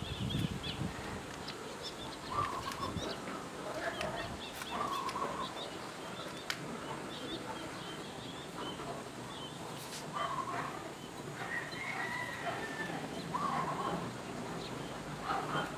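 Birds chirping and calling in short, scattered calls over steady outdoor background noise, with a brief low rumble right at the start.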